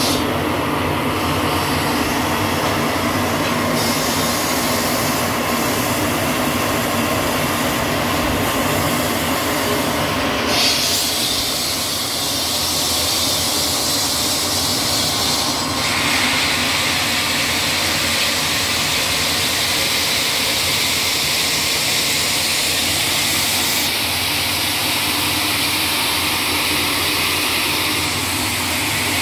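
Steady, loud mechanical noise with a low hum underneath, its tone shifting abruptly a few times while the loudness holds even.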